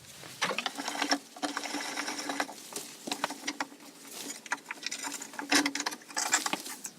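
A bench tail vise being wound shut on a workpiece: a run of irregular small mechanical clicks and rattles from its screw and handle.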